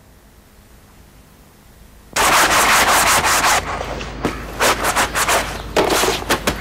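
Toothbrush scrubbing teeth in loud, quick back-and-forth strokes, about four a second, starting suddenly about two seconds in.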